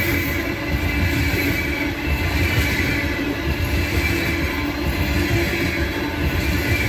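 Freight train of open-top coal cars rolling past close by: a steady rumble of steel wheels on the rails with a faint thin high squeal from the wheels.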